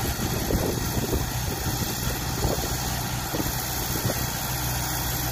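Diesel engines of a dump truck and a small crawler dozer running steadily at a low, even hum while the truck's bed tips up and its load of soil slides out, with some irregular clatter over the hum.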